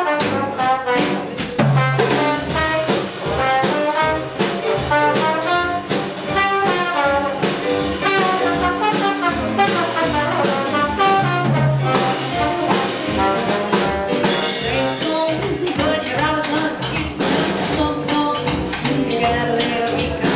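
A small swing jazz band playing live. A trombone carries the melody over a Casio digital piano and a drum kit keeping a steady swing beat.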